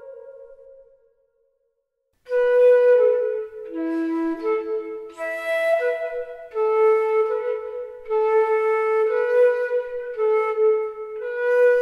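Improvised solo flute. A held low note fades out in the first second, and after about a second of silence a slow melodic line of sustained notes begins in the flute's low register, moving by small steps.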